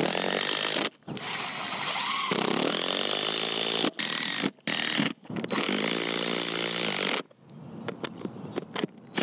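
DeWalt 20V MAX cordless impact driver driving lag screws through the Starlink Volcano mount into the roof, running in several bursts of one to three seconds with short stops between, quieter near the end.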